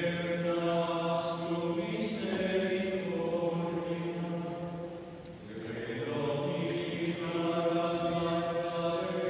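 Liturgical chant sung during Mass: long held notes in two phrases, with a short break about halfway through.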